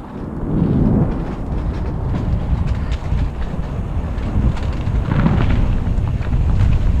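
Bike tyres clattering over the planks of a wooden boardwalk in a rapid run of rattles, over a steady rumble of wind buffeting the microphone.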